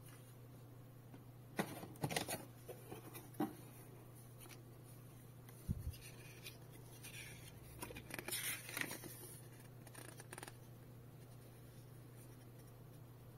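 Paper being handled: a stiff instruction card and a small printed user manual crackle and rustle in the hands as the booklet is opened and its pages are leafed through. There are sharp crinkles early on, a single low thud about six seconds in, and a longer stretch of rustling in the middle. A steady low hum runs underneath.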